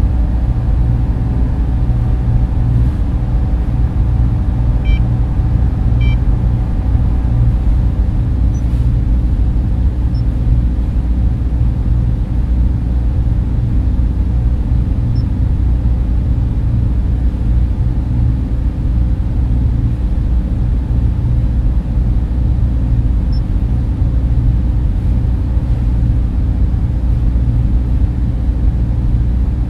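Steady, loud, low server-room drone of humming machines and ventilation fans. Two short electronic beeps come about five and six seconds in, with a few faint high blips scattered later.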